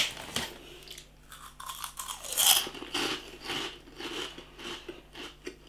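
Crunching and chewing of CoFresh Jalapeno Grills potato crisps, with irregular crackles of the crisp snack breaking between the teeth.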